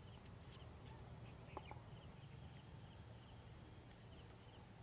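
Near silence: faint rural outdoor ambience with a low rumble and scattered faint chirps of distant birds.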